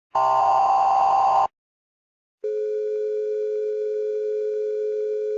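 The last burst of an Emergency Alert System header's buzzing data tones, about a second of silence, then the steady two-tone EAS attention signal starting about two and a half seconds in.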